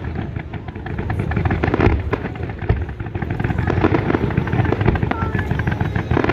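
Fireworks display going off: a dense, continuous run of bangs and crackling pops from aerial shells and low-level crackle effects.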